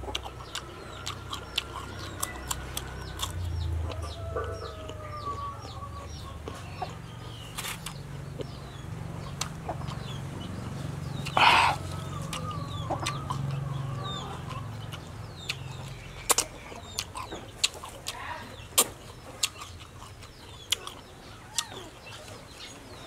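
Chickens clucking in the background, with a few drawn-out wavering calls and one brief loud burst about halfway through, over a man chewing raw okra close to the microphone with many sharp mouth clicks and smacks.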